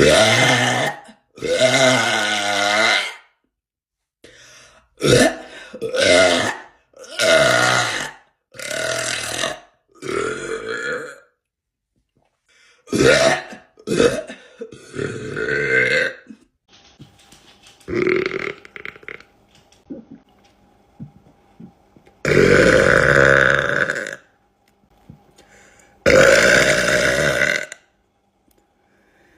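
A woman burping again and again: about a dozen loud belches, some short and some drawn out for a second or two, separated by brief silences.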